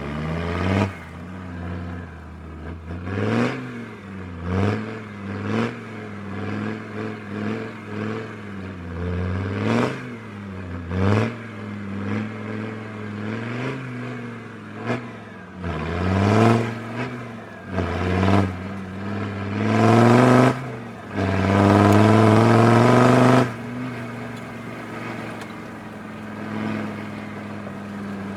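Land Rover Defender Td5 2.5-litre five-cylinder turbodiesel, ECU freshly remapped for more power, revving up and dropping back again and again about once a second. Near the end it is held at high revs for about two seconds, the loudest part, then falls back to a steady lower run.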